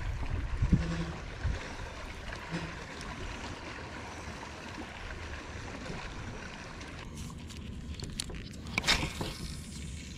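Water lapping and gurgling against a fishing boat's hull under a steady low rumble of wind. The sound changes about seven seconds in, followed by a few sharp clicks and a short scrape near the end.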